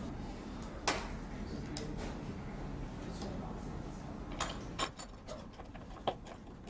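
Scattered clicks and knocks of flat-pack shelf parts and hardware being handled, fitted and tightened by hand, about seven sharp taps at uneven intervals.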